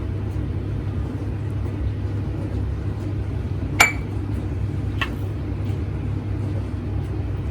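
Two sharp clinks of glass or kitchenware, about a second apart, over a steady low hum. The first clink is louder and rings briefly.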